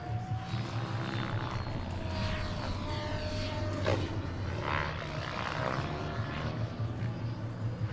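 Large scale RC model CH-113 Labrador tandem-rotor helicopter running on the ground, its two rotors turning with a steady low drone and a thin motor whine.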